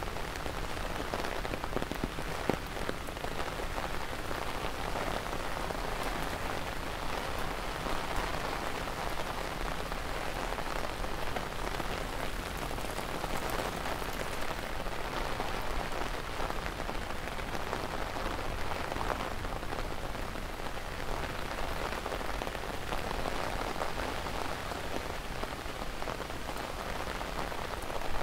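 Steady rain falling on an umbrella held overhead and on the wet paving around it, an even unbroken patter.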